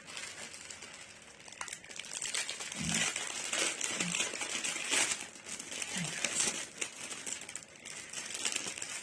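Packaging crinkling and rustling as it is handled and torn open by hand, in irregular bursts that grow busier about two seconds in.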